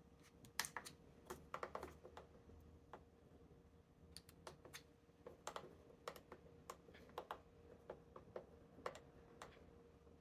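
Soft, irregular clicking of a Ninja Foodi multi-cooker's control dial being turned notch by notch, with a few button presses, as the temperature is set down to 180 °C and the cooking time is dialled down.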